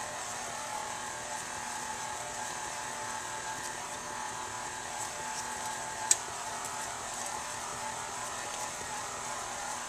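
KitchenAid stand mixer's motor running with a steady whirring hum as its beater mixes cookie dough. A single sharp click about six seconds in.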